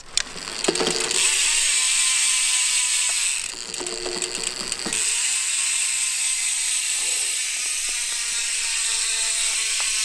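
Mountain bike rear freehub ratcheting as the wheel freewheels: the pawls click so fast that they merge into a steady high buzz. It dips briefly around three seconds in, then picks up again and runs steadily.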